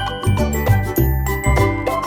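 Background music with a steady beat: a repeating bass line about twice a second under high, held melody notes.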